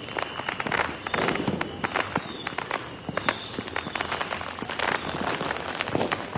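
Fireworks going off: a dense, irregular crackle of many cracks and pops, with a louder bang right at the end.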